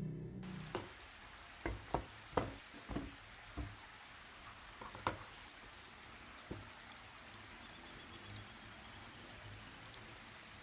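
Kitchen prep sounds of a knife and pumpkin pieces handled on a wooden cutting board: a run of sharp knocks and clicks in the first few seconds, then two more, spaced out, over a faint hiss. A low hum fades out at the very start.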